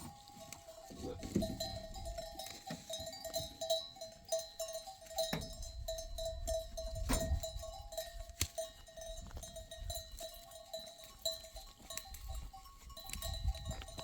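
Livestock bells clanking and ringing unevenly, on and off throughout, with a few sharper knocks.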